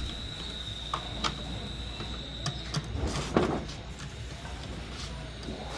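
A few light clicks and knocks and a short rustle, over a steady high-pitched tone that stops about two and a half seconds in.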